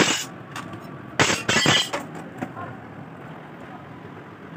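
Sheet glass clinking and crackling in two short bursts, one right at the start and a longer one about a second in, as a cut round clock glass is handled, with a few light ticks between.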